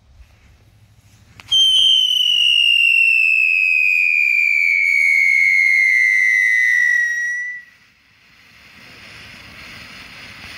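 Ground fountain firework with a whistle effect: one loud whistle starts suddenly about a second and a half in and slowly falls in pitch for about six seconds, then stops. Then a steady hiss of the fountain spraying sparks builds up.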